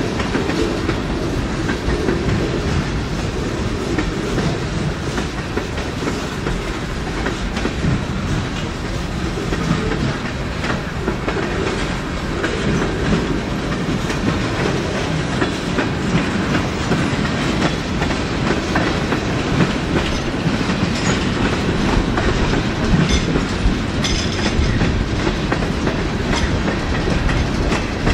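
Freight train cars rolling past at speed: a steady rumble of steel wheels on rail, with the wheels clacking over rail joints.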